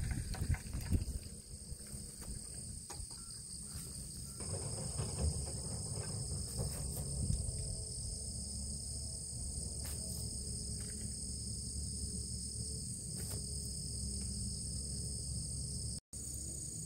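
Steady chorus of insects singing in several high, unbroken tones, over a low rumble of wind on the microphone. The sound cuts out briefly near the end.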